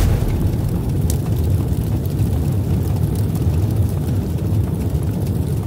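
Steady low rumbling roar of a cinematic whoosh-and-rumble sound effect, loud and heavy in the bass, holding even throughout.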